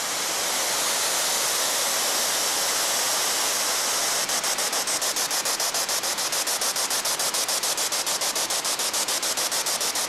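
Spirit box playing loud white-noise static through a small portable speaker. About four seconds in, the hiss starts chopping rapidly, about six times a second, as the box sweeps from station to station.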